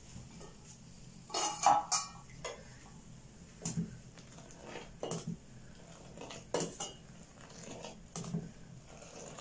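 A steel pot lid is lifted off with a clatter about a second and a half in. A steel ladle then stirs and scoops milky pink tea in the steel pot, clinking against the pot every second or so, four more times.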